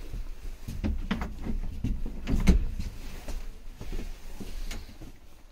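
Irregular knocks and thumps, the loudest about two and a half seconds in.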